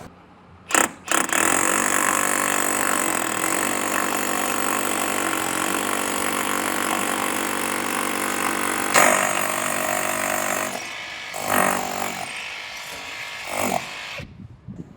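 Power drill boring a 3/8-inch hole into a split-face masonry block wall, running steadily for about nine seconds after a brief first burst, then two short bursts before stopping.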